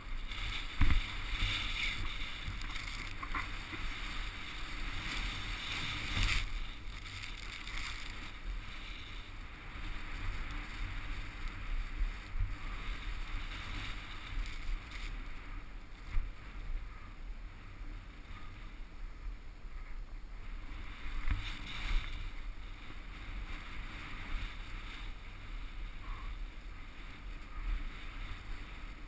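Snowboard sliding through powder snow: a continuous hiss that swells and fades several times, over a low rumble of wind on the camera microphone. A few sharp thumps break in, the loudest about a second in.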